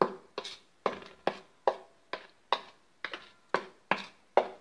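A spoon stirring dry flour in a stainless steel plate, knocking and scraping against the metal in a steady rhythm of about two or three strokes a second.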